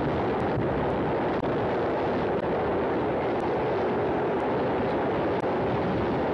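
Steady, dense roaring noise from a film soundtrack, with no recognisable source, and faint ticks about once a second.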